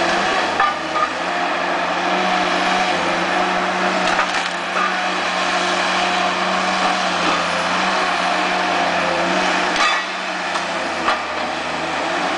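Tigercat tracked harvester's diesel engine and hydraulics running steadily while its Waratah 624 Super harvesting head works among pine trees, with sharp cracks of breaking wood about four times.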